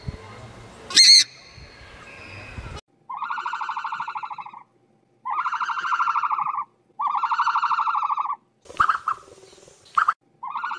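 An animal calling. A short, shrill cry comes about a second in, then a rapidly pulsing call of about a second and a half, repeated four times at even spacing, with a couple of sharp clicks before the last.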